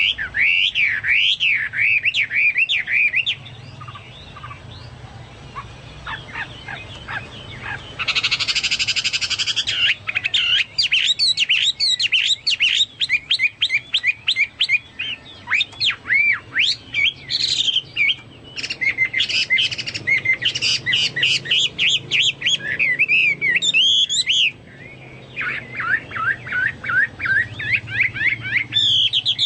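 Chinese hwamei singing in full song: a long run of rapid, varied whistled phrases and trills. A quieter stretch comes about four seconds in, and a dense buzzy trill about eight seconds in. The song is of the kind likened to a cucak Papua's or cucak mas's.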